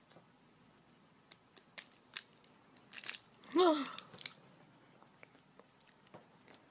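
Candy wrapper crinkling in a run of sharp crackles as a cat bites and paws at a wrapped sweet. Partway through comes a short, falling voice-like call, the loudest sound.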